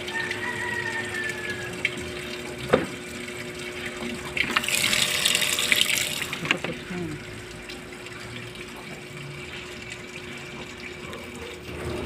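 Water running into a Samsung automatic washing machine's tub as it fills, with a louder rush of water lasting about two seconds midway. A single sharp click comes a little before it.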